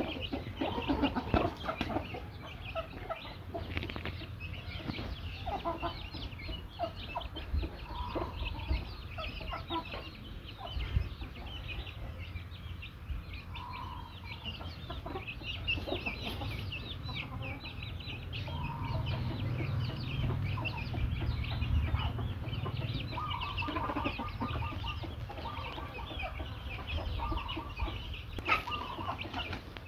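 Backyard chickens clucking as they forage, with many short, scattered clucks over a low background rumble.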